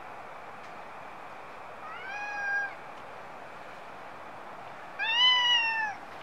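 A stray cat meowing twice, the second meow about three seconds after the first, louder and rising then falling in pitch, over a steady background hiss.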